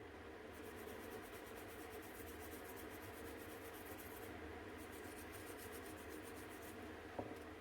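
Faint fast back-and-forth scraping strokes, like a small tool or brush worked on a part, in two runs with a short pause between them, then a single sharp click near the end.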